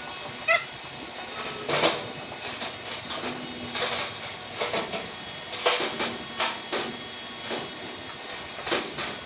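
Irregular knocks and clatters, about a dozen with the strongest near 2, 4 and 6 seconds, over a steady hiss. A short squeak about half a second in.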